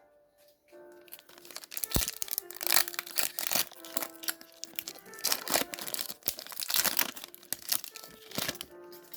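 Foil Pokémon TCG booster pack being torn open and crinkled, a loud crackling of wrapper foil starting about a second in and easing off near the end. Soft background music plays underneath.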